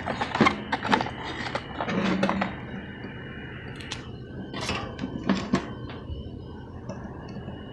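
A cardboard box being handled and opened, and a new aluminium-can motor capacitor slid out of it: rustles and scrapes, then a few sharp clicks. A faint steady high tone runs under it from about three seconds in.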